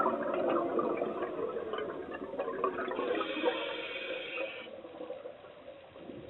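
Underwater water noise with bubbling and gurgling, fading toward the end.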